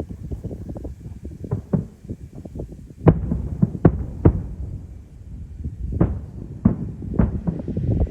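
Aerial fireworks going off: a fast run of small crackling pops throughout, with about six louder bangs from shells bursting, starting about three seconds in.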